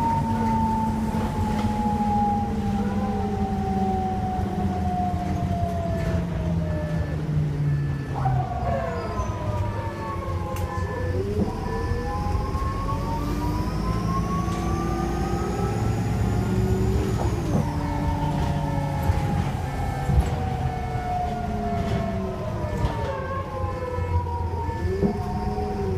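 2002 Optare Solo bus's diesel engine running under way, with a low rumble and whines that slide down and back up in pitch as engine speed changes. A faint high turbo whistle rises and falls about halfway through.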